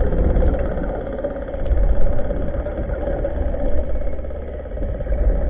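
A motor running steadily, heard underwater: an even hum over a low rumble.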